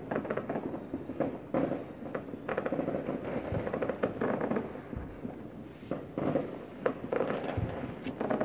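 New Year fireworks and firecrackers going off, a dense, irregular run of cracks and bangs, a few of them louder than the rest.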